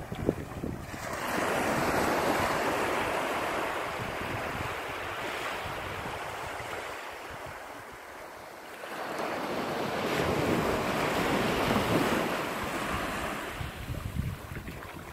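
Small waves washing up a sandy shore: two long swells of surf hiss, the first starting about a second in and the second after a lull near the middle. Wind rumbles on the microphone, most at the start and near the end.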